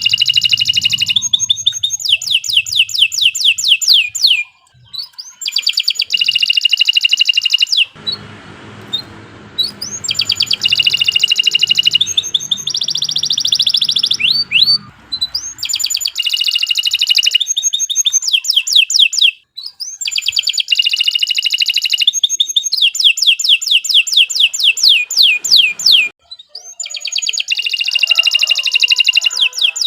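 Domestic canary singing: long runs of fast, evenly repeated notes and rolling trills, phrase after phrase with short breaks between.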